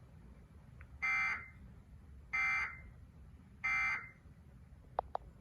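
Emergency Alert System end-of-message data tones: three short, harsh bursts of the digital SAME code about a second and a half apart, signalling the end of the alert. Two faint clicks follow near the end.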